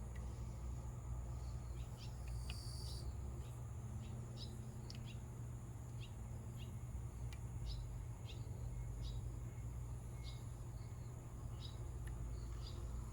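Outdoor ambience: a steady high-pitched insect trill with short bird chirps every second or so, over a low steady rumble.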